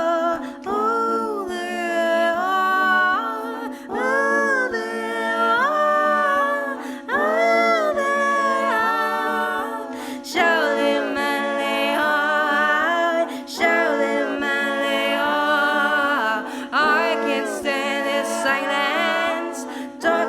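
Wordless female vocal melody, phrases rising and falling, layered over a looped backing of sustained vocal harmony.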